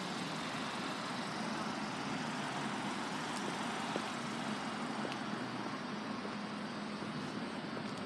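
Steady road-traffic noise with a low hum underneath and a few faint clicks; no single event stands out.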